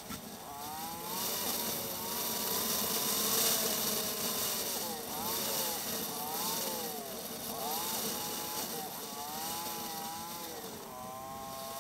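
Motorcycle engine under way, its pitch rising and falling again and again with the throttle and gear changes on a winding road, over a steady rushing noise.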